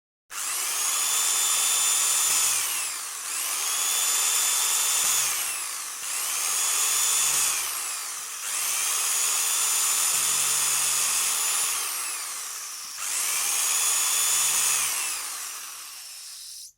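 Electric drills running in five back-to-back bursts of high whine, each spinning up, holding a steady speed for a few seconds and falling in pitch as it winds down while the next one starts.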